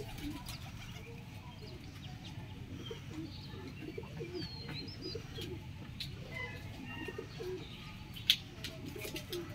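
Background of birds calling: short high chirps and glides over low, wavering calls, with no crow. One sharp click comes about eight seconds in.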